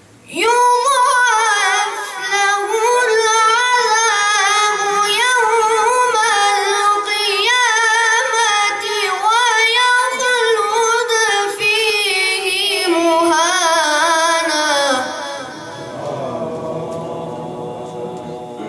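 A boy's high voice reciting the Quran in the melodic tajweed style, one long held phrase with wavering, trilled ornaments, starting about half a second in and growing softer and fading near the end.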